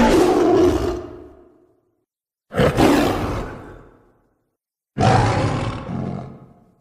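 Three separate custom monster roar sound effects for Squidasaurus Rex, each starting suddenly and fading away over a second or two, with silence between them.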